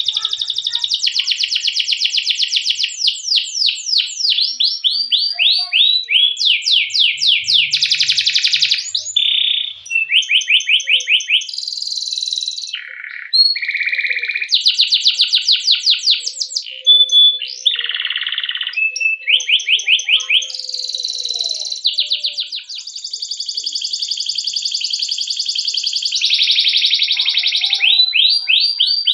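Domestic canary singing a long, unbroken song of rapid rolls and chirping phrases. Each phrase is a run of quick repeated notes that switches to a new pattern every second or two.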